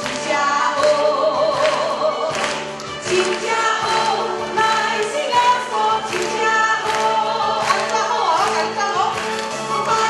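A woman singing into a microphone over musical accompaniment with a steady beat.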